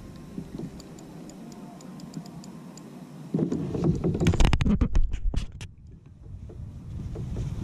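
Handling noise from the camera: faint quick ticking for the first few seconds, then a loud burst of rubbing and knocking about three seconds in as a gloved hand grabs and adjusts the camera on its mount.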